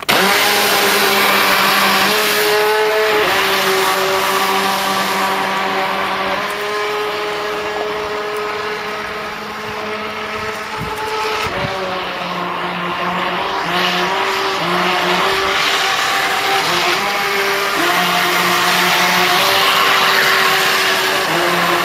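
Radio-controlled speedboat's motor whining at speed, its pitch stepping up and down with the throttle, over the hiss of water spray from the hull.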